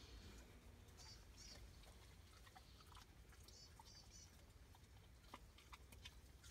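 Near silence: a faint low background hum with a few soft clicks and a few groups of faint high chirps.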